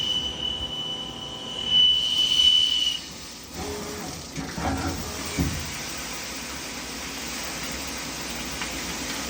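Shop machinery giving a loud, steady, high-pitched whine that stops about three seconds in. A few brief irregular sounds follow, then an even steady hiss of running equipment.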